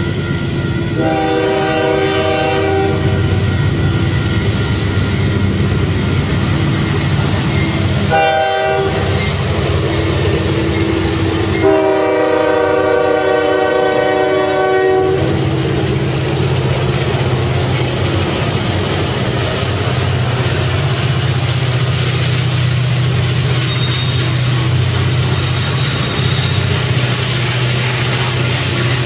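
Union Pacific diesel locomotives sounding their air horn three times: a long blast about a second in, a short one around eight seconds, and a long one from about twelve to fifteen seconds. The locomotives' diesel engines then run past with a steady low hum, followed by coal hopper cars rolling by with wheel clatter.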